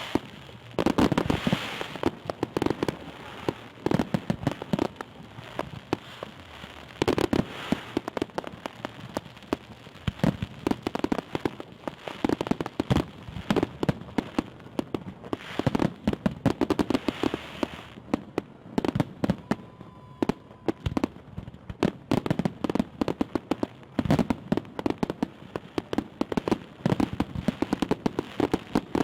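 Fireworks salute: dense crackling and popping from bursting shells, coming in clusters every second or two with sharper bangs among them.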